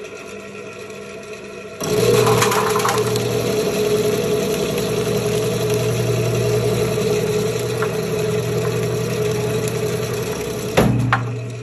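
Electric rotary slicing machine running, its spinning blade disc cutting yellow produce into slices. A steady mechanical hum grows much louder about two seconds in and holds until a sharp knock near the end.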